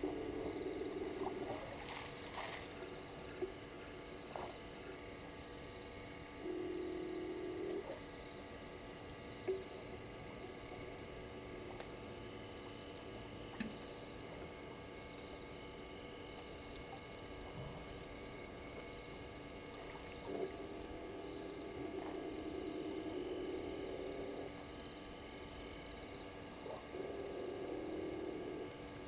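Night chorus of crickets and other insects at a waterhole, trilling steadily with very fast pulses, with short chirps repeating every second or two. A few lower calls about a second long come in, two of them near the start and several near the end.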